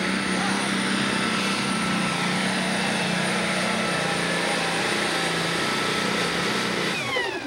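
Super Stock pulling tractor's diesel engine running flat out under load as it drags the weight sled, a loud steady roar with a high whine over it. Near the end the pitch slides down and the sound drops away.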